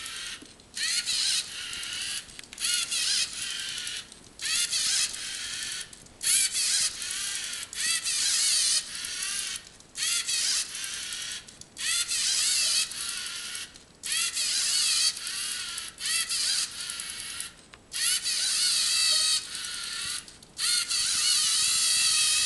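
LEGO Mindstorms NXT servo motors whining in about a dozen start-stop bursts of one to two seconds each, separated by short pauses, as the robot drives and makes small incremental turns. The whine wavers in pitch within each burst.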